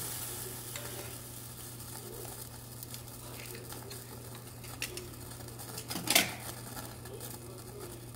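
Seafood hot pot boiling in a clay pot over a tabletop gas burner, with a steady hiss, while metal tongs and kitchen scissors click against the pot and shells. One sharp, loud clack about six seconds in.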